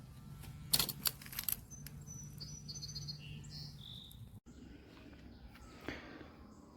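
Faint short bird chirps over a low steady hum, with a few sharp clicks about a second in; the background changes abruptly midway at an edit cut.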